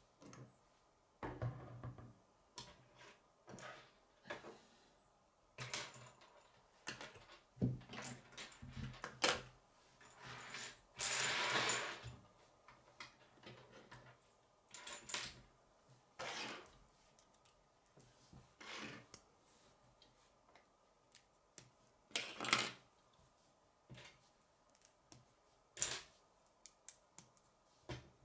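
Plastic K'nex rods and connectors clicking and clattering as they are handled, snapped together and set down on a wooden tabletop, with irregular knocks and one longer rattle about eleven seconds in.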